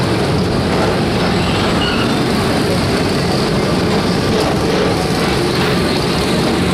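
Magic Kingdom PeopleMover ride car running steadily along its elevated track: an even, unbroken running noise from the moving open car.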